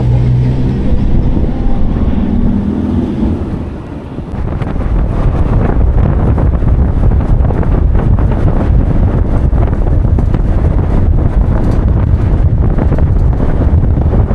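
Riding in the open bed of a pickup truck: engine and traffic noise for the first few seconds, then from about four seconds in loud, gusty wind buffeting the microphone as the truck picks up speed, over road noise.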